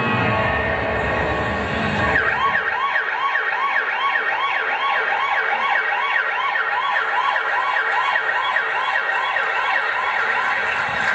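Emergency-vehicle siren sound effect in a performance soundtrack, a fast rising-and-falling wail repeating about twice a second, starting about two seconds in after a low rumble.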